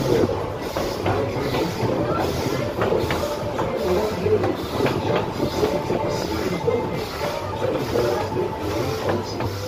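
Narrow-gauge steam train heard from an open passenger car: wheels clattering on the rails, with short hissing chuffs in an even beat a little under two a second.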